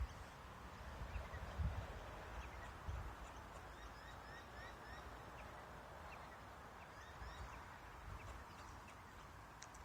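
Kangaroo making low, deep clucking calls, a few pulses in the first three seconds, a call probably of courtship. Small birds chirp faintly behind.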